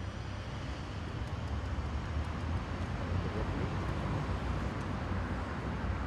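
Steady low rumble of city traffic, an even outdoor urban background without distinct events.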